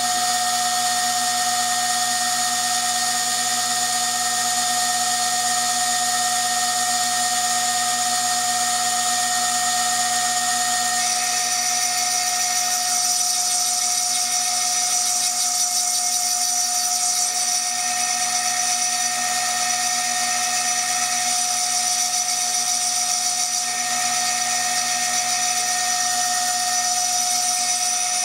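High-speed spindle on a CNC milling machine engraving glass with a freshly sharpened cutter: a steady high whine with a grinding hiss. About eleven seconds in, a higher tone and more hiss join in.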